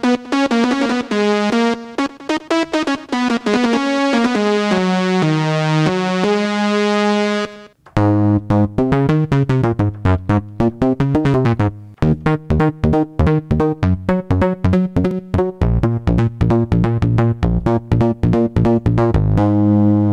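Modal Electronics Cobalt5S synthesizer played on its keyboard. A bright patch of quick notes runs for the first seven and a half seconds. After a brief break it changes to a deep, bass-heavy patch of short repeated notes. Near the end this switches to a held, wavering sound.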